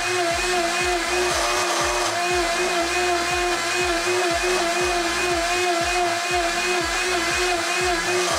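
Blendtec blender running steadily at full speed, churning water that is nearly at the boil. Background music with a steady beat plays over it.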